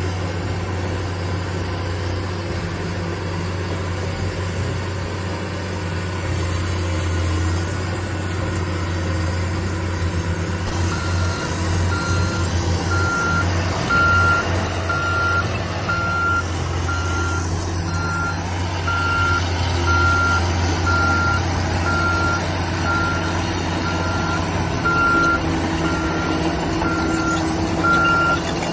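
Bulldozer's diesel engine running steadily under load; about a third of the way in its reverse alarm starts beeping, roughly once a second, as the dozer backs up.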